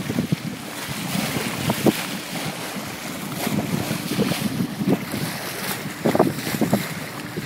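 Wind buffeting the microphone over water rushing and splashing along the hull of a moving boat, in uneven gusts with a few louder surges.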